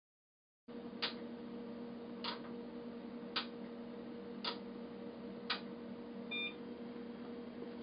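A steady electrical hum with hiss, five sharp evenly spaced clicks about a second apart, then a short two-tone electronic beep.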